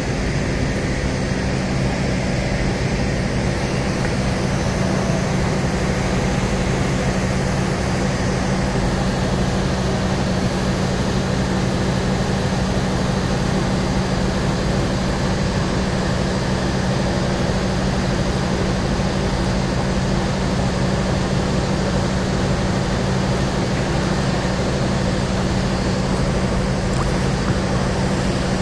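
Stationary diesel passenger train idling: a steady low engine hum.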